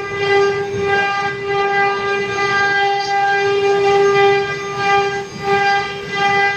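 CNC router spindle running and carving a wooden stock, giving a steady high whine with a brief dip in level about five seconds in.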